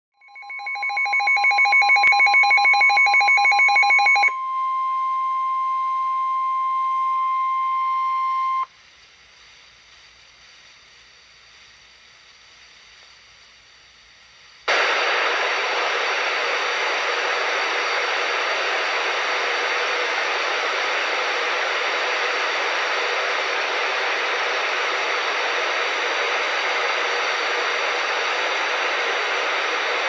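NOAA Weather Radio receiver sounding a Special Marine Warning. First comes rapid pulsing electronic alert beeping for about four seconds, then the steady 1050 Hz warning alarm tone for about four seconds. After a few seconds of near quiet, a loud steady hiss of dead air begins about fifteen seconds in, where the live warning audio failed to transmit.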